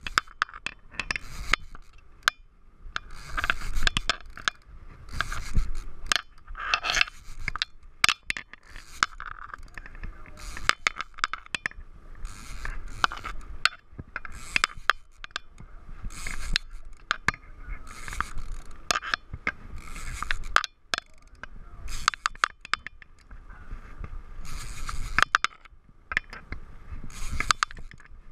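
Conventional level-wind trolling reel being cranked to wind in line, its gears and handle making rapid clicks and rasping scrapes in uneven runs.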